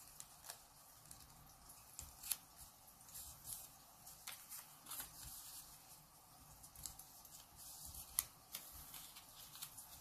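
Faint crinkling and soft ticks of a small sheet of origami paper being folded and creased by hand, with a couple of sharper crackles about two seconds in and near eight seconds.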